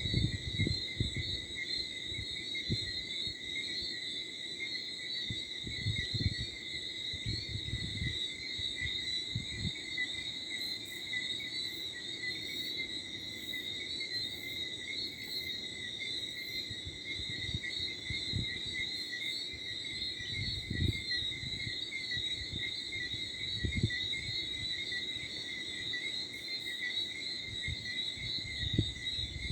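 Steady, shrill night chorus of crickets and frogs, with a light wind gusting and rumbling on the microphone. A quick series of very high chirps joins in for a few seconds near the middle.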